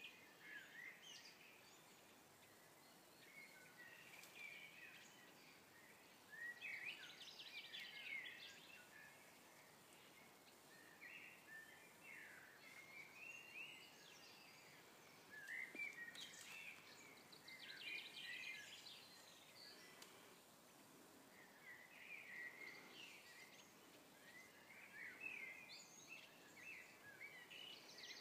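Faint songbirds singing: short warbling phrases every few seconds, some ending in a fast trill, over a quiet outdoor hiss.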